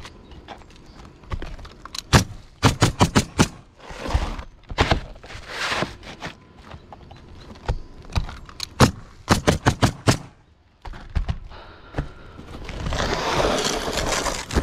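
Nails being driven into roof decking in quick runs, several sharp strikes a fraction of a second apart, in two main bursts. Rough scraping noises come between the runs, with a longer one near the end.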